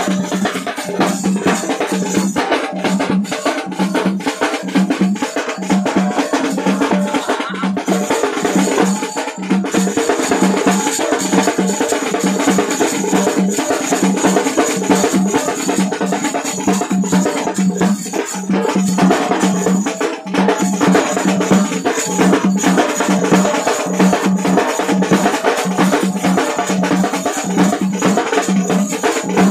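A drum band playing: large double-headed barrel drums struck with a stick and a bare hand, and small snare-type side drums, keeping a fast, steady, even beat, with small hand cymbals.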